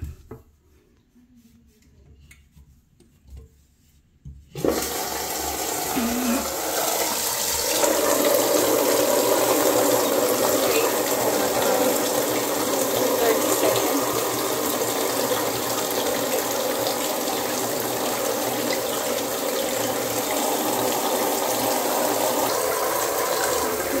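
Toilet-tank fill valve with its cap off, gushing water into the tank against a plastic container held over it, after the water supply has been turned back on to flush the valve out. The rush starts suddenly about five seconds in, after a quiet stretch, and then runs loud and steady.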